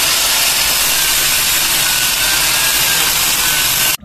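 Handheld angle grinder running against a wooden plank, grinding the wood smooth: a loud, steady grinding hiss with a faint motor whine, cutting off suddenly near the end.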